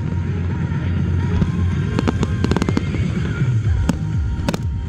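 Aerial fireworks shells bursting in a run of sharp bangs about two seconds in and another pair near the end, over loud music playing throughout.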